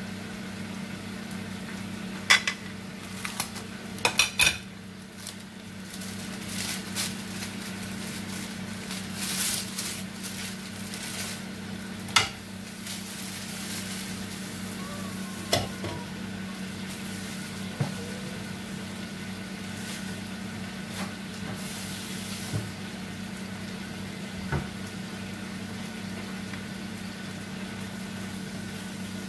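Cooking in a frying pan: a spatula clinks and scrapes against the pan, with sharp knocks every few seconds and a light frying sizzle, over a steady low hum.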